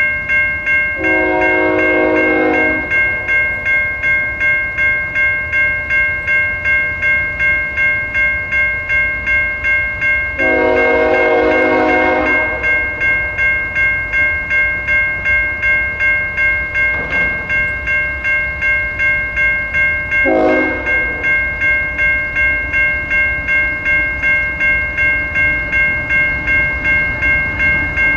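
A low-tone Siemens electronic crossing bell rings steadily at about two strokes a second. Over it, the horn of the approaching train's lead GE ES44AC locomotive sounds two long blasts and then a short one: the grade-crossing signal of long, long, short, long, blown for the crossing.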